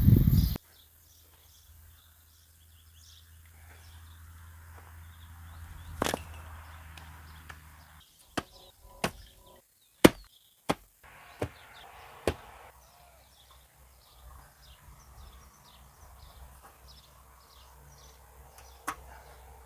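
Digging tool striking hard, dry soil: a string of sharp knocks, about seven of them spaced roughly a second apart through the middle, with the loudest about ten seconds in and one more near the end.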